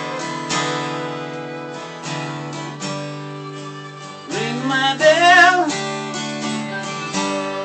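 Acoustic guitar strummed in a steady rhythm, with a fiddle bowing along. A louder, wavering melodic line comes in briefly about halfway through.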